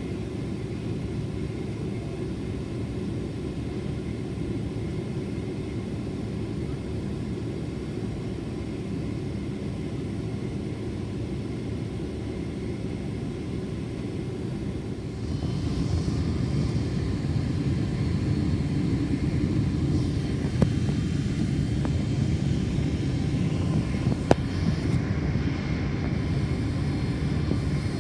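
Cabin noise inside a Boeing 767-400ER airliner: a steady low rumble of the engines and airframe that steps up to a louder level a little past halfway through. Two brief sharp clicks come later.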